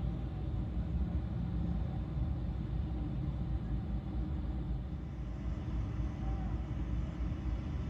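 Engines of slow-moving parade vehicles, fire trucks and pickups among them, running as they creep past: a steady low rumble with no distinct events.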